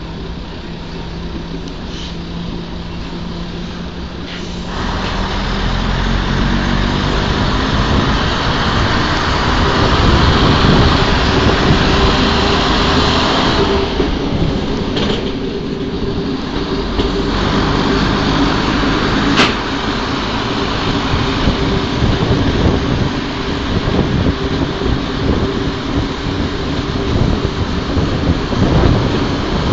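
Diesel engine of a first-generation single-car DMU 'bubblecar' working hard as the railcar accelerates, its note climbing over the first several seconds and then holding steady. Rumble of wheels on the track runs under it, and there is one sharp click past the middle.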